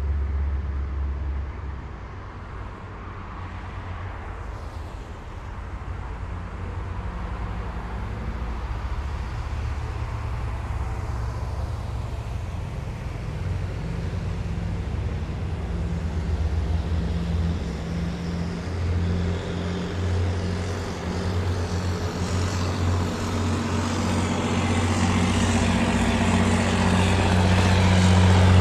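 Engines of heavy military vehicles driving past in a column, a deep, steady drone. It dips about two seconds in as one vehicle moves off, then grows louder as the next approaches, loudest near the end.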